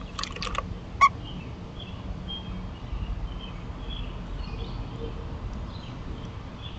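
Newly hatched American robin nestlings begging with a string of short, faint, high peeps. A few rustles and one sharp tap come in the first second.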